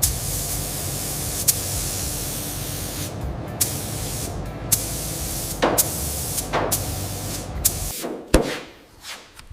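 Compressed-air spraying that hisses steadily, with a few sharp clicks, and stops about eight seconds in, followed by a loud knock.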